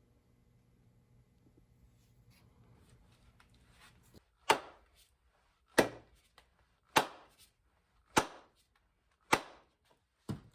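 Six sharp, evenly spaced hammer strikes, about one every 1.2 seconds, each with a short ringing tail, starting about four seconds in after a faint low hum cuts out.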